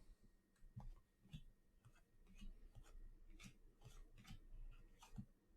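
Faint, scattered light clicks and taps of trading cards being handled and flipped through.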